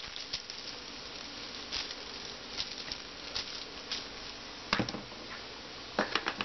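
Faint, scattered light ticks and pattering of kitchen handling, with a few sharper clicks near the end.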